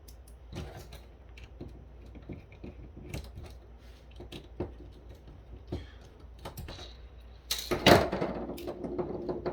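Small plastic clicks and taps from a cordless phone handset being taken apart by hand, with a louder clatter of plastic parts about eight seconds in.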